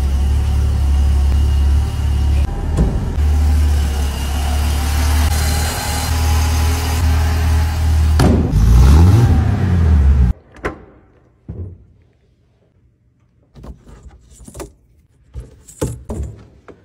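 Car engine running with a steady low rumble; its pitch briefly dips and climbs again, and the sound cuts off abruptly about ten seconds in. After that there are only a few faint clicks and knocks.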